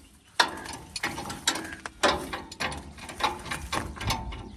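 Irregular mechanical clicking and clanking, roughly two knocks a second, like metal parts being worked or ratcheted.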